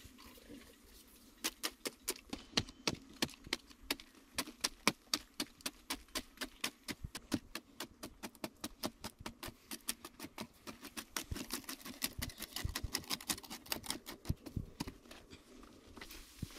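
Hand hoe chopping into hard red clay in quick repeated strikes, about three a second, each a short sharp knock with a little loose soil scattering.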